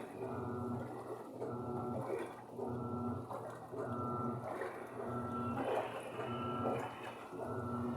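Panasonic washing machine in its wash cycle: the motor hums through strokes of about a second each with a short break between, as it drives the load back and forth and the water churns.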